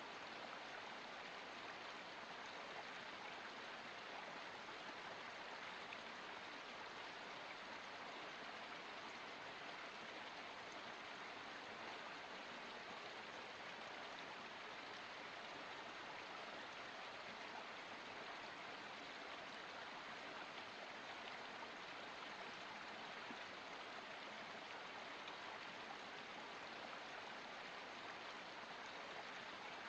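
Water of a forest spring running: a steady, even rush of flowing water with no breaks.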